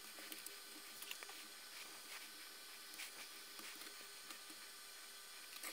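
Faint, scattered small clicks and taps from handling an LED bulb's circuit board while a new electrolytic capacitor is fitted, over a low steady hiss.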